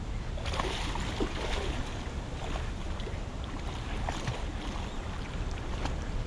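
River water rushing and splashing, a steady hiss full of small ticks that comes in about half a second in, over a low rumble of wind on the microphone.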